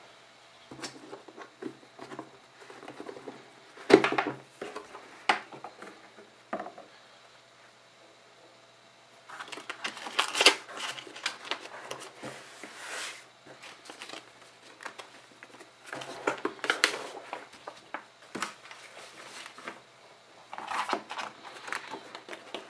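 Sheets of paper rustling and sliding as drawings are handled in a black plastic portfolio case, with several sharp clicks and knocks from the case, the loudest about four seconds in.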